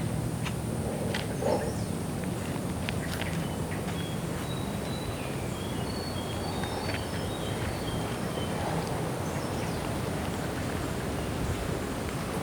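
Tropical forest ambience: birds giving short, high chirps through the middle, over a steady background hiss and low hum. There are a few faint ticks and a soft thump in the first few seconds.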